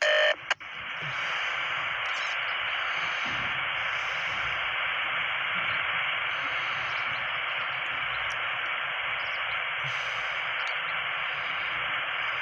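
Railroad scanner radio hissing with steady static on an open channel, after a brief loud burst at the very start; no transmission comes through.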